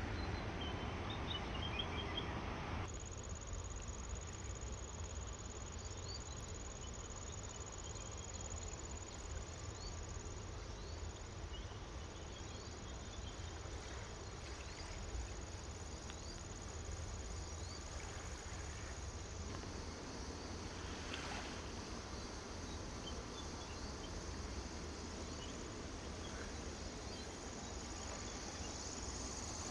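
Insects chirping in a steady high trill, starting about three seconds in, over a steady low rumble.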